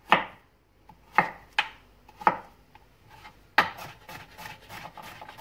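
Chef's knife chopping peeled zucchini on a cutting board. A few separate cuts knock on the board, then a quicker run of chops starts about three and a half seconds in.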